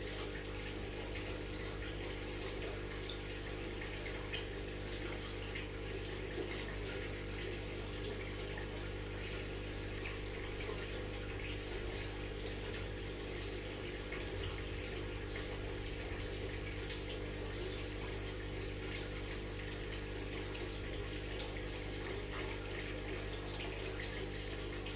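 Aquarium water running and splashing steadily from the tank's filter or pump, with a steady mechanical hum underneath.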